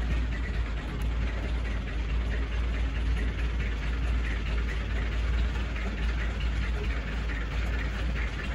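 A steady low rumble with an even hiss above it, with no distinct knocks or changes.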